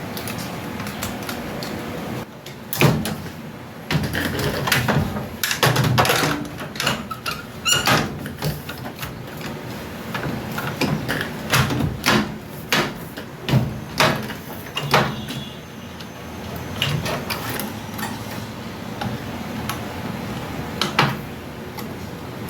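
Irregular clicks, knocks and scraping as a microwave's repaired control board is handled and fitted back into its housing, with a short squeak about eight seconds in.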